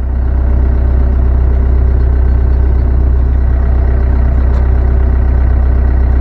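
The engine driving the homemade hydraulic cylinder-disassembly machine, running steadily.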